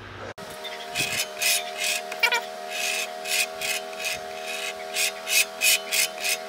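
Rhythmic hand rasping or rubbing strokes, like filing or sanding. They come irregularly at first and settle to about two a second, over a steady faint hum.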